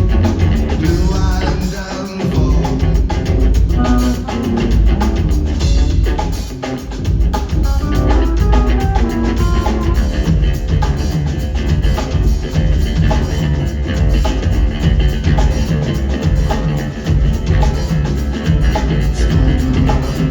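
Live rock band playing an instrumental stretch of a song, with drums and a heavy bass line to the fore.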